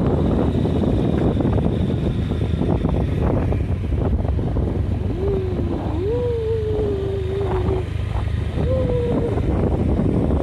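Wind buffeting the microphone over the running noise of a vehicle travelling down a winding road. About halfway in, a short wavering tone slides down three times.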